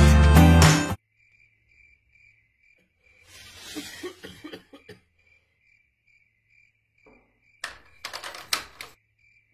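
Music cuts off about a second in, leaving a cricket-chirp 'awkward silence' sound effect: a faint, regular chirp about twice a second. A soft rustle follows midway, and a few sharp knocks and clicks come near the end.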